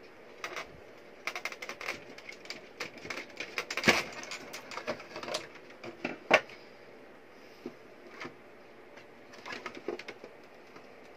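Hand work inside an opened plastic UPS case: a run of clicks, rattles and knocks as pliers pull the wire connectors off the battery terminals and the case top is lifted aside. Two sharper knocks come about four and six seconds in.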